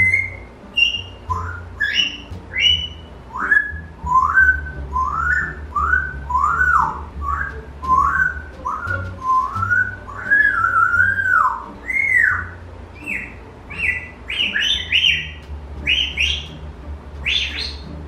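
African grey parrot whistling a long run of short rising-and-falling notes, about two a second, then breaking into higher, sharper chirps and squeaks near the end.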